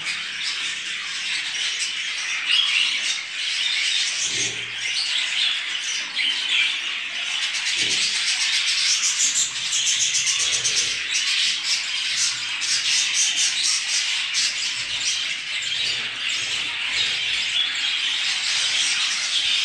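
A roomful of budgerigars chattering together: a steady, dense twittering made up of many quick clicks and short warbled notes.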